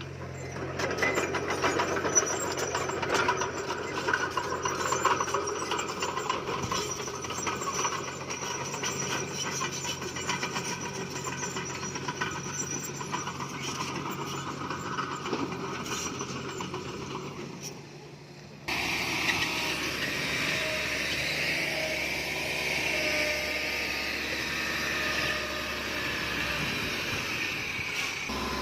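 Komatsu D20P crawler bulldozer at work: the diesel engine runs under a busy clatter of track and stone clanks. About two-thirds of the way through the sound changes abruptly to a steadier engine drone with a high whine.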